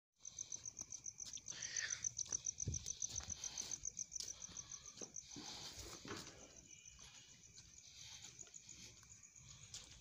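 A cricket chirping steadily in a rapid, high-pitched pulse, with a few knocks and rustles of handling in the first six seconds.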